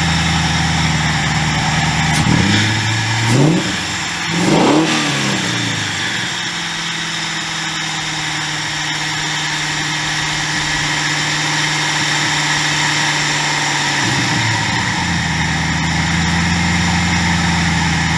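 DOHC four-valve V8 idling on freshly installed ignition coil packs, blipped twice a few seconds in with two quick revs that rise and fall, then settling back to a steady idle.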